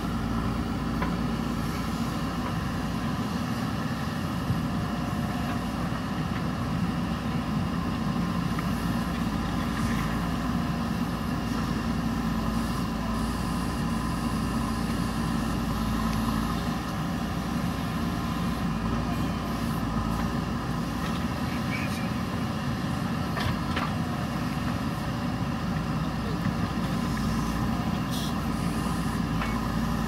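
JCB backhoe loader's diesel engine running steadily under load while its backhoe arm digs into wet earth, with a few faint knocks.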